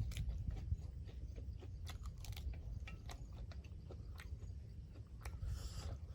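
Close-up chewing and mouth sounds of someone eating pork curry with rice: scattered wet clicks and smacks over a low rumble, with a brief hiss near the end.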